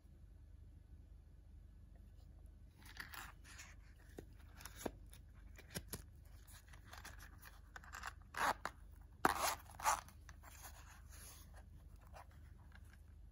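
Handling of a zippered hard-shell microphone case: scattered clicks and rustling as the Samson Go Mic is set into it, then a few short, louder zipping strokes about eight to ten seconds in as the case is zipped shut.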